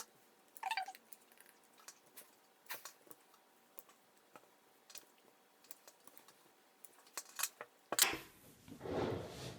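Scissors snipping through felt in short, irregular cuts, about one a second, with a brief squeak under a second in. Louder rustling of felt being handled near the end.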